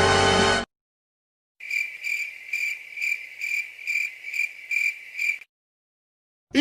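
Crickets chirping, the stock 'awkward silence' comedy effect: a high chirp repeating evenly about twice a second for nearly four seconds. It comes after a short musical sting cuts off within the first second, followed by a brief silence.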